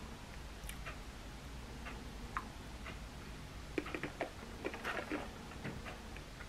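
Faint chewing and crunching of a chocolate-covered almond: scattered small crisp clicks, thickening into a quick cluster of crunches about four to five seconds in.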